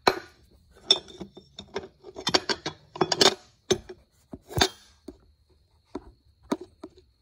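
Irregular sharp knocks and metallic clinks from the recording phone being handled and propped up against something next to metal tools and parts, with the loudest knocks about three and four and a half seconds in, and fewer later.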